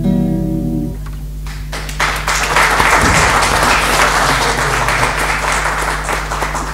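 A guitar-accompanied song ends on a final chord that rings for about a second, then an audience applauds for about five seconds, thinning out near the end. A steady low hum runs underneath.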